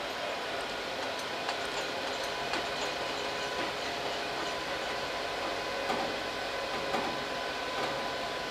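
Large all-terrain mobile crane's engine running steadily: an even mechanical noise with a faint steady whine. A few light clicks sound through it.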